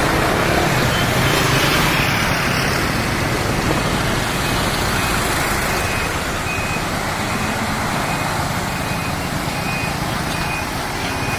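Busy road traffic: a steady rumble of engines and road noise. From about four seconds in, a short high electronic beep repeats roughly every two-thirds of a second.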